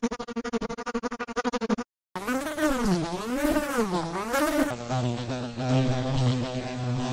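Digitally altered housefly-buzzing sound effect in three successive variations. First a buzz that flutters rapidly on and off and cuts out just before two seconds in. Then a buzz whose pitch swoops down and up twice, followed, from about five seconds in, by a steadier buzz with a deep hum beneath it.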